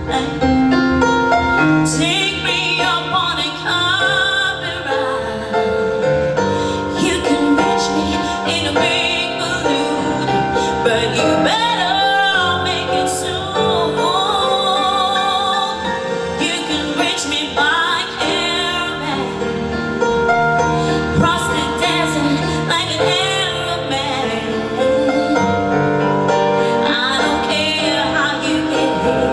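A song sung with strong vibrato on long held notes, over steady instrumental accompaniment.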